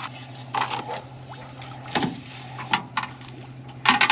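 A boat's motor runs at trolling speed as a steady low hum. Over it come several separate knocks and clatters as a metal-handled landing net is handled against the aluminum boat, then a quick flurry of clicks near the end.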